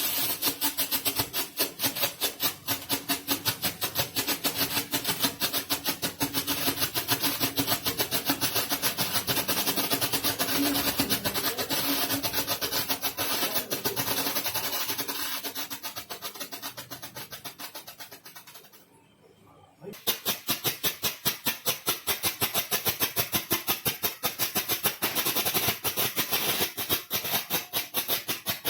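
Photo flash firecrackers going off in a rapid, evenly spaced string of sharp pops. The first one fades and stops about 18 seconds in, and a second starts popping about a second later.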